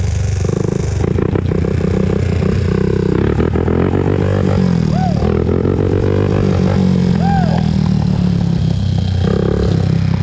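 Honda TRX400EX ATV's single-cylinder four-stroke engine running steadily while riding, its pitch rising and falling a little with the throttle.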